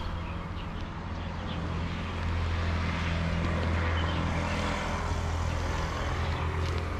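Road traffic: a vehicle going by on the road, getting louder about two seconds in, over a steady low hum.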